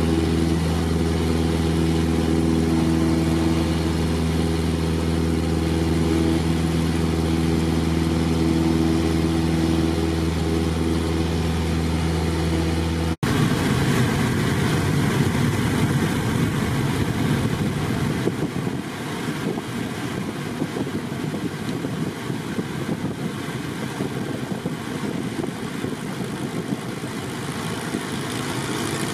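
Cessna 172's engine and propeller droning steadily, heard from inside the cabin. About halfway through there is a sudden cut to a rougher rush of air over the engine, which eases slightly a few seconds later.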